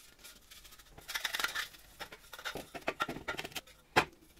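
Brush strokes applying liquid phosphoric-acid rust remover to a rusty steel vacuum-cleaner housing, irregular and scratchy. A single sharp knock comes near the end.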